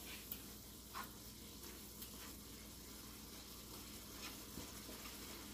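Ground-beef taco meat sizzling faintly in a skillet as it cooks down, with a few light scrapes and taps of a utensil stirring it.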